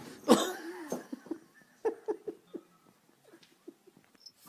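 A person laughing in a string of short bursts, mixed with a dog's noises during rough play, fading to faint clicks in the second half.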